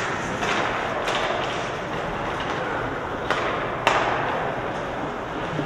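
Ice hockey game play in a rink: skates scraping the ice over a steady arena hiss, broken by sharp knocks of sticks and puck, the loudest about four seconds in.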